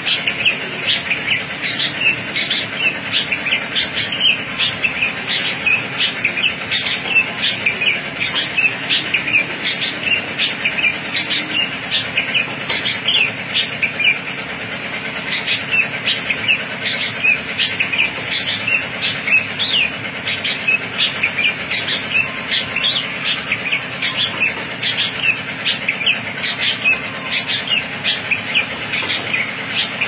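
Serkele songbird singing continuously (ngacor): a rapid stream of sharp, high chirps and short whistles, several a second, with a brief break about halfway through. A faint steady low hum runs underneath.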